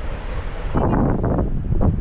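Wind buffeting the microphone in irregular gusts. It starts abruptly about three-quarters of a second in, where a steady rushing hiss cuts off.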